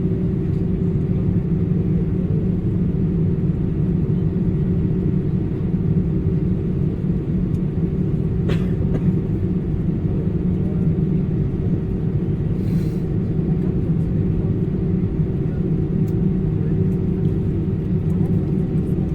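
Steady low rumble inside a moving vehicle, with a constant deep hum and no change in pitch or level.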